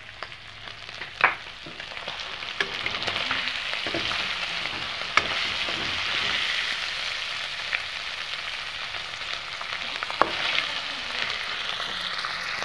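Food pieces sizzling in hot oil in a metal kadai while being stirred with a steel spoon. The sizzle grows louder over the first few seconds, and the spoon clinks sharply against the pan a few times.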